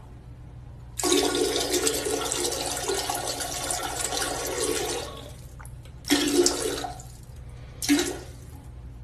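Dog urinating into the water of a toilet bowl: a steady splashing stream for about four seconds, then two short spurts.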